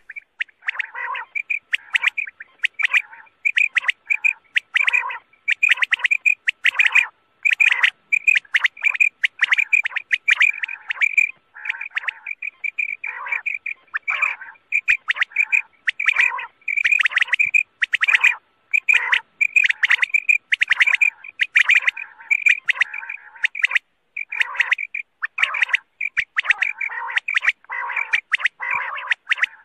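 Quail calling over and over in quick, sharp repeated notes: a quail call played as a lure for hunting.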